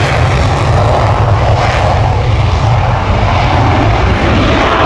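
Dassault Rafale's twin Snecma M88 turbofan engines running at full afterburner on the takeoff roll: a loud, steady, deep jet noise.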